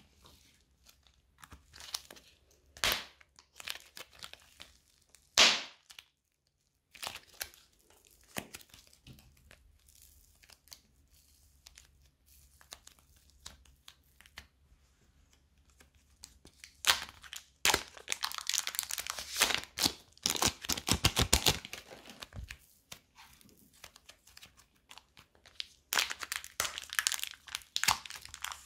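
Fingers pressing and pulling apart fluffy cloud slime, making crunchy crackling and tearing sounds. Single crackles come first, then dense crackling runs about two-thirds of the way through and again near the end.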